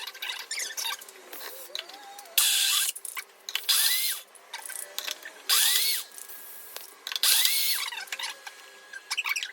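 Electric kitchen mixer grinder run in three short pulses, each with a motor whine that rises and falls away as it stops. Small clicks and clatter come between the pulses.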